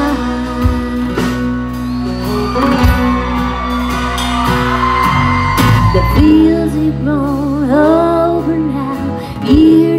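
Live country music: acoustic guitar and band backing, with a woman's voice singing a wavering melody over held chords.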